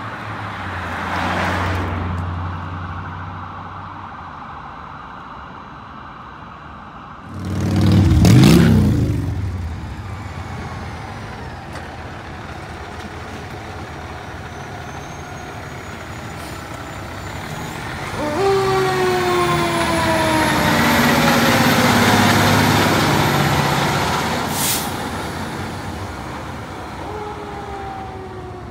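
Fire trucks responding with sirens over the rumble of their diesel engines. A loud burst with a rising rumble comes about eight seconds in. From about eighteen seconds a siren sweeps down and up over the running engine of a tower ladder truck as it pulls away.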